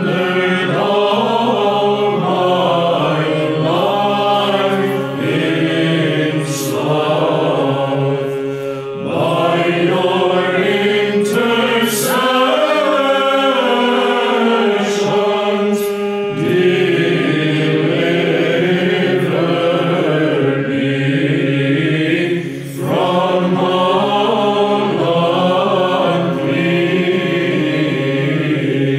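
Byzantine chant sung by a mixed virtual choir: the melody moves in unison over a steady held ison drone. The drone drops out for a few seconds about halfway through while the melody carries on.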